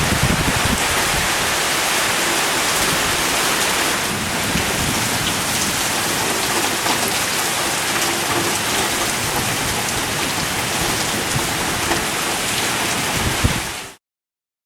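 Heavy rain pouring down in a thunderstorm, a loud, steady hiss, with low rumbles near the start and just before the end; the sound cuts off abruptly near the end.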